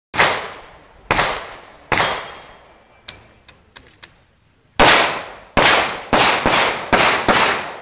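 Glock 17 9 mm pistol firing a string of shots, each with a long echoing tail in a hallway. Three shots come about a second apart, then a few faint clicks, then six quicker shots.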